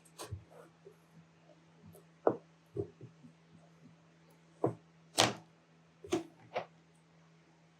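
Irregular light knocks and clicks of tools and fabric being handled on a sewing table, about seven separate thunks, over a faint steady hum.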